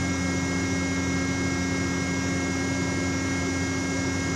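Steady hum of running machinery aboard a ship, made of several even tones that do not change.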